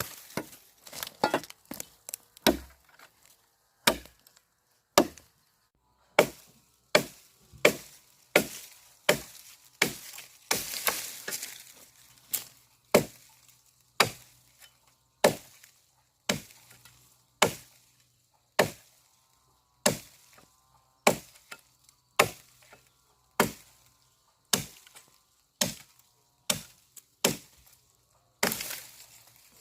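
Repeated chopping strikes of a blade into wood and brush. The first few seconds are uneven, then the strikes settle into a steady rhythm of about one a second.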